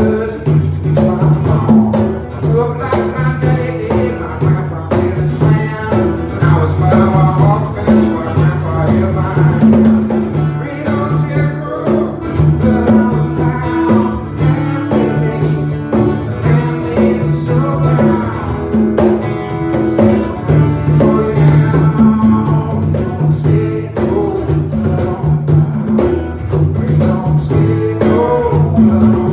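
Live acoustic band playing: two acoustic guitars strummed, a pair of congas played by hand, and a man singing lead into a microphone.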